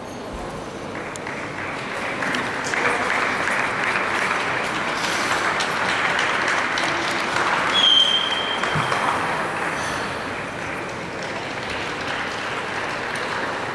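Audience applauding. It swells after a second or two and eases off near the end, with a short high whistle about eight seconds in.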